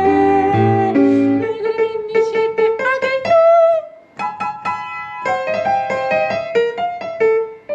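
Instrumental piano music: held chords, then a phrase of short single notes, a brief pause about four seconds in, and another phrase of notes.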